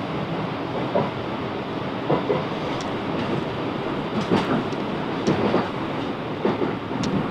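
Class 707 Desiro electric train running, heard from inside the carriage: a steady rumble with irregular clicks and knocks of the wheels over the track.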